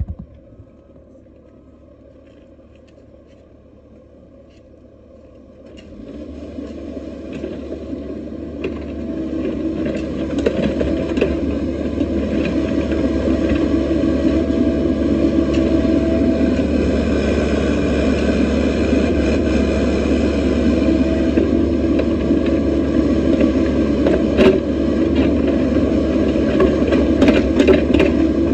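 Excavator's diesel engine running low and steady, then throttling up in two steps around six and ten seconds in and running loud and steady, with a few sharp knocks near the end.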